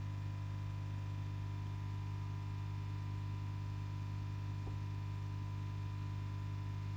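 A steady low hum that does not change, with one faint tick about two-thirds of the way through.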